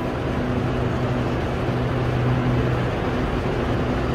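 Steady hum of an SRT Red Line electric commuter train standing at the platform, a low even drone over a wash of station noise.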